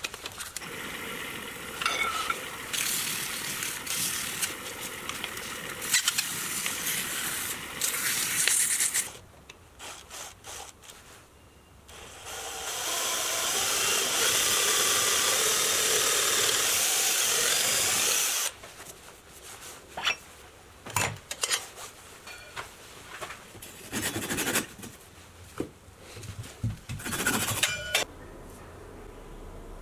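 A wooden workpiece spinning on a wood lathe while a gloved hand rubs it, making a rough hiss in two stretches: one up to about nine seconds in and a louder, steadier one of about six seconds in the middle. Scattered clicks and knocks of tools being handled follow.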